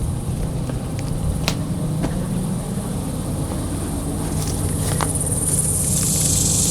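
Pickup truck engine idling with a steady low hum, while insects buzz high in the background, swelling near the end. A couple of light clicks or footsteps.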